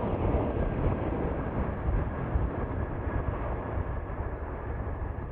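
Twin jet engines of a Eurowings Airbus A330 at takeoff thrust during its takeoff roll: a steady deep rumbling roar that eases slightly toward the end as the jet pulls away.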